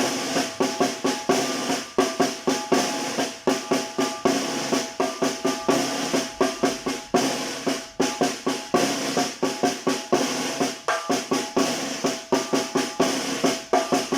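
Tarola, the snare drum of a Mexican banda, playing the son (chilena) rhythm at a slowed-down teaching tempo: a steady, continuous run of ringing drum strokes.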